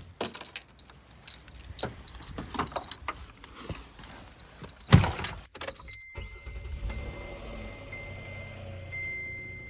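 Keys jangling and rustling, then a loud thud about five seconds in, like a car door shutting. After that a car's warning chime beeps on and off over a low steady rumble.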